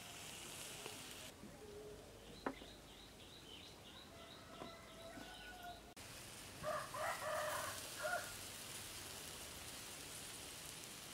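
A rooster crows once, a call of about a second and a half just past the middle, the loudest sound here. Before it, a small bird gives a quick run of repeated high chirps, over a steady background hiss.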